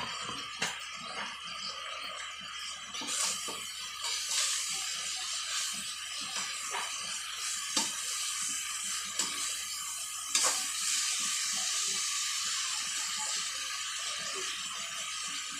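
Hands tossing sliced bitter gourd in a metal wok, with rustling and scattered light knocks of the ladle and pan, over a steady hiss that grows louder about three seconds in.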